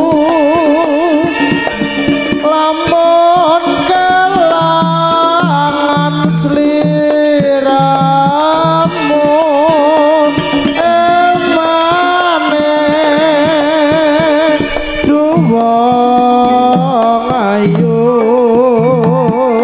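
Javanese jaranan music played live: a wavering lead melody over hand drums and steady low pulses.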